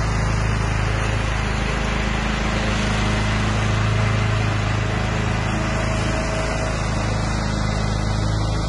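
A 16 hp lawn tractor with a 38-inch mower deck running at a steady engine speed while mowing tall grass, its steady hum growing slightly louder around the middle as it passes.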